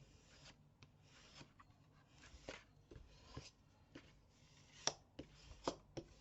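Quiet rubbing and rustling of paper and card being handled and pressed down, with a few light sharp taps about five seconds in.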